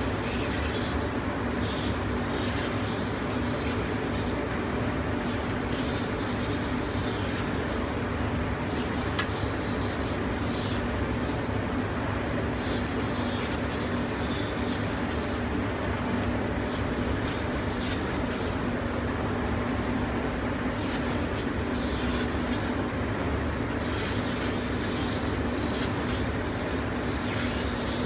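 Laser cutting machine running as it cuts printed fabric: a steady mechanical drone with a constant low hum.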